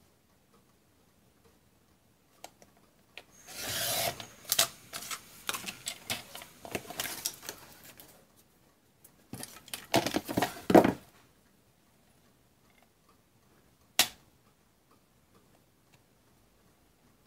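Paper being handled and cut on a Fiskars sliding paper trimmer: two stretches of rustling and scraping a few seconds long as paper slides on the trimmer and its cutting head runs along the rail, then one sharp click near the end.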